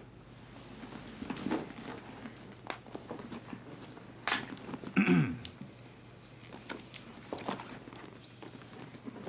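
Cloth rustle and soft handling clicks as a doctor takes off his stethoscope and packs up, with a couple of louder knocks and rustles around the middle.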